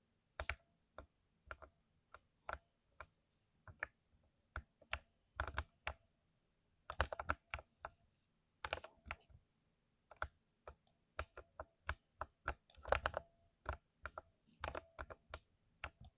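Typing on a mechanical keyboard with lubed switches: irregular keystrokes, some single and some in quick flurries, with short pauses between them.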